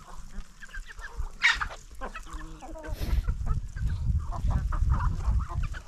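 Chickens clucking, several birds calling over one another, with one sharp squawk about a second and a half in. A low rumble starts about halfway through and becomes the loudest sound.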